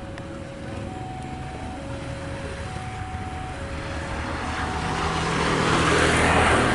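An electronic warning signal repeats two alternating tones, low then high, each just under a second long. An approaching train's rumble grows steadily louder over it, becoming the loudest sound near the end.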